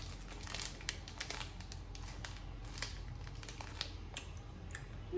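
Plastic packaging crinkling as it is handled, in irregular scattered crackles.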